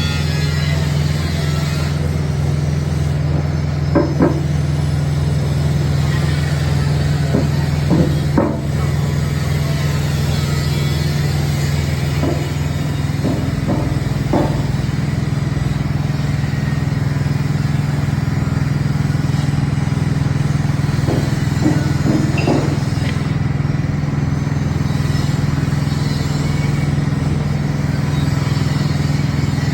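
Small Honda petrol engine running steadily, driving a coconut milk press, with a few short knocks and clatters from the machine about 4, 8, 14 and 22 seconds in.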